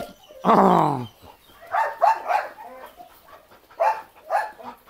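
Belgian Malinois barking in short bursts during bite work on a jute bite pillow: one longer bark that falls in pitch near the start, then quick sharp barks at about two seconds in and again at about four.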